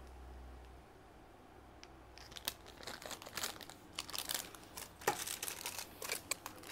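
Bangles and their wrapping being handled: crinkling and rustling with many small sharp clicks, starting about two seconds in.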